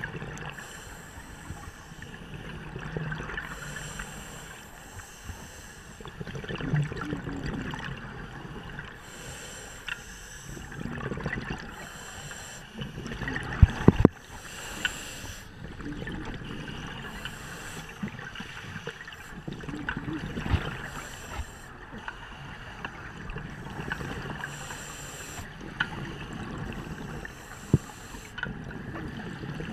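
Underwater sound of a scuba diver breathing through a regulator: bursts of exhaled bubbles every few seconds. A few sharp knocks come close together about 14 seconds in.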